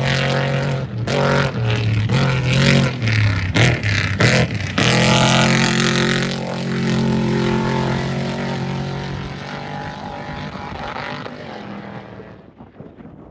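Off-road race vehicle's engine revving hard, with several quick breaks in the throttle over the first few seconds. It then holds at high revs and fades away as it passes, leaving wind noise near the end.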